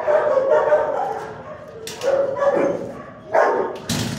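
Excited shelter dog barking and whining in three drawn-out bouts. A sharp, loud sound comes near the end.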